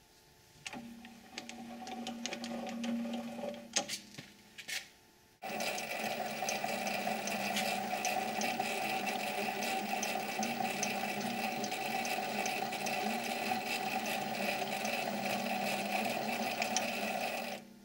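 A 7x16 mini lathe running under power feed during a thread-cutting pass: a steady motor and gear-train whine with the threading tool ticking and scraping on the steel workpiece. It starts about a second in, with a few sharp clicks near four seconds, steps up abruptly about five seconds in to a louder, steady run, and stops sharply near the end.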